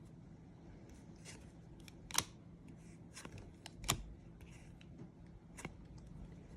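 Trading cards being handled and slid through the hands, faint rustling broken by three short, sharp clicks about two, four and five and a half seconds in.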